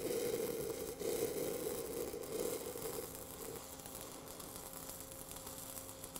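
Crackling of a 6010 stick-welding arc laying a weld on steel pipe, the rod stepped in and out to keep the keyhole small. It dips briefly about a second in and grows quieter about three seconds in.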